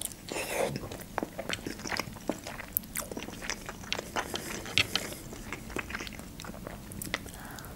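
Close-up eating sounds of a khinkali dumpling being bitten into and chewed, with many short smacks and clicks of the mouth.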